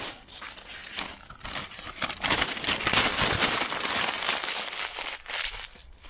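Irregular rustling and crinkling handling noise with small clicks and knocks, busiest in the middle: fireworks being taken out of a tin box and handled.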